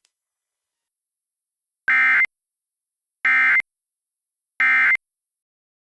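Emergency Alert System end-of-message signal: three short, identical bursts of SAME digital data tones, a harsh two-tone warble, about a second apart. It marks the end of the tornado warning broadcast.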